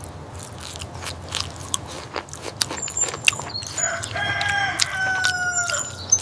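Many sharp clicks and crunches over a steady low hum, and about four seconds in, a long drawn-out animal call that falls slightly in pitch.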